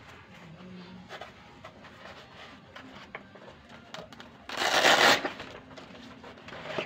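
Handling noise from the back massager's fabric cover and foam padding being moved by hand: light rustles and small clicks, with one loud rustle or scrape about four and a half seconds in, lasting under a second.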